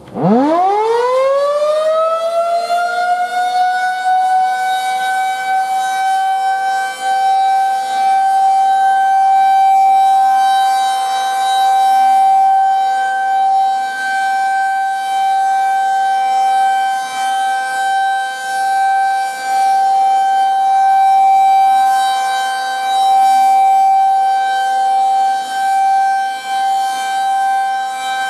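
Federal Signal 2001-SRN rotating electromechanical outdoor warning siren starting up for a test: its pitch climbs steeply in the first few seconds, then holds a steady, loud wail. Its loudness slowly swells and fades as the head rotates.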